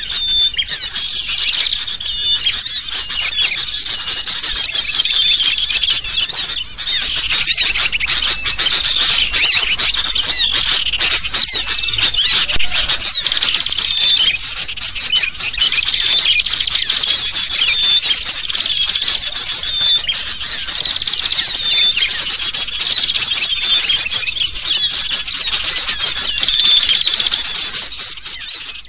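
Bird-lure recording of agitated, noisy sooty-headed bulbuls (kutilang) mixed with the chirps of small birds: a dense, continuous chorus of high calls with a recurring bulbul phrase every couple of seconds. It is the kind of alarm-like racket played to draw wild birds in, and it fades out near the end.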